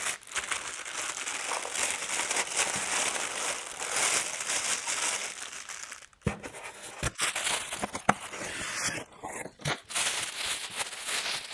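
Packing material being crinkled and torn while a new planer is unboxed, with several sharp knocks in the second half, the loudest about eight seconds in.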